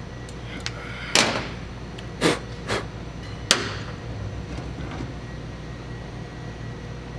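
Four short, sharp knocks from tools and parts being handled during hands-on work on a motorcycle, coming within about two and a half seconds, over a steady low hum.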